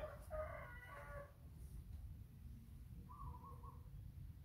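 A rooster crowing once, lasting just over a second. A short chirping call follows about three seconds in, over a low background rumble.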